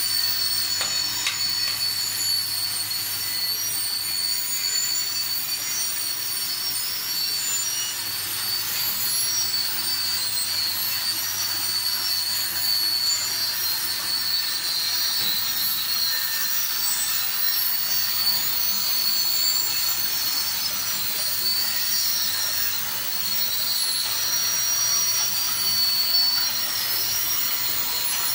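Water jets hissing steadily from a row of spray nozzles onto an LED high bay light fitting in a waterproof spray test, with a low steady hum underneath.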